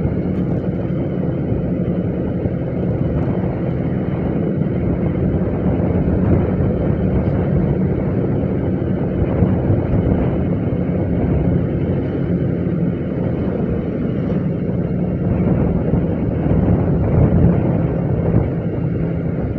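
Motorcycle riding with strong wind rushing over the microphone, the engine running steadily underneath.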